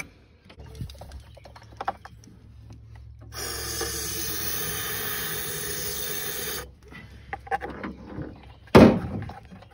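Aerosol can sprayed in one steady hiss of about three seconds into the spark plug hole of a snowmobile's two-stroke engine, priming the cylinder so it will fire. Small handling noises around it, and a single sharp knock near the end.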